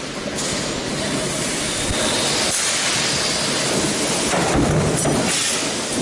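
Steady machinery noise in a metal stamping workshop, a broad hiss with a low hum under it, growing slightly louder about four to five seconds in.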